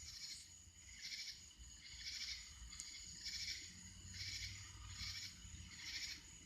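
Night insects calling: a buzzy chirp repeating about once a second over a steady high-pitched trill.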